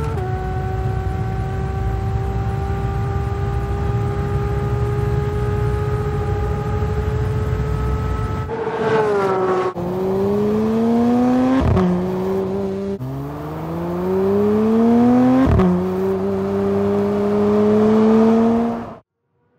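Porsche 911 GT3 (992) naturally aspirated 4.0-litre flat-six running at high revs at full speed: a steady, slowly rising note at first, then about nine seconds in the pitch falls and the engine pulls up in several rising sweeps, each broken by a sudden drop in pitch as it shifts up. The sound stops abruptly near the end.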